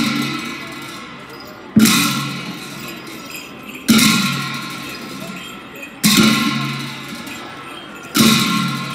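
Tibetan monastic cymbals and drum of a cham dance struck together in a slow, even beat about every two seconds. Each crash rings out and fades before the next stroke.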